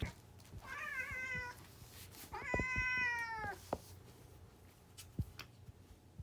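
A domestic cat meowing twice: a short meow, then a longer, louder one that falls slightly in pitch at its end. A few faint clicks follow.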